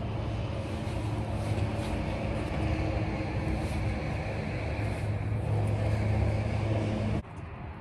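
An engine running steadily with a low hum, which cuts off abruptly about seven seconds in.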